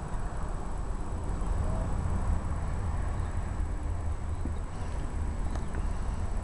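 Wind buffeting the microphone: a steady low rumble throughout, with a few faint clicks near the end.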